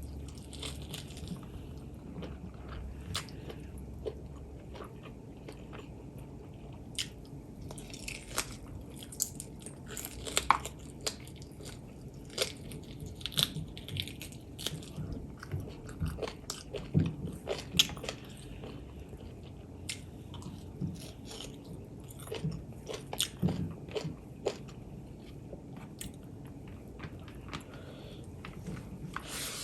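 Close-miked chewing and biting: many small irregular wet clicks and crunches of a person eating a meal of pork legs with rice, busiest in the middle stretch.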